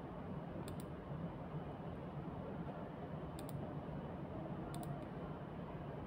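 Computer mouse clicked three times, each a quick double tick, over a steady low room hum.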